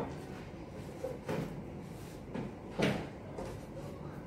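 Items being set down and moved on a dining table while it is laid: several short knocks and clatters, roughly one a second.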